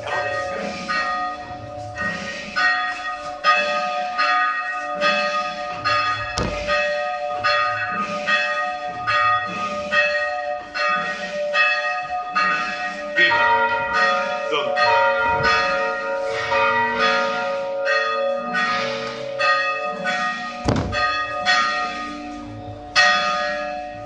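Church bells rung by hand from ropes, tolling the requiem (funeral) knell: several bells of different pitches struck in a steady rhythm of one to two strokes a second, each stroke ringing on. A different set of tones comes in about halfway through, and a couple of low thuds sound among the strokes.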